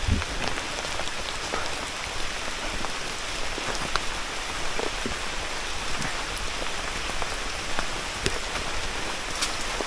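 Heavy rain falling steadily, with scattered sharp taps of individual drops landing close by.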